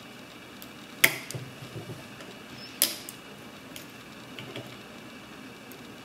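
Skeleton key and tension tool working inside an S&G mailbox lever lock: two sharp metallic clicks, about a second in and just under three seconds in, each followed by a few lighter ticks as the levers are lifted.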